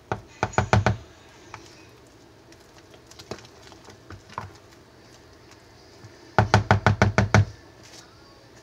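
Silicone spatula and plastic mixing bowl knocking as thick hot-process soap batter is stirred briskly: a quick run of about six knocks at the start and a longer run of eight or so about six seconds in, with light scraping and clicks between.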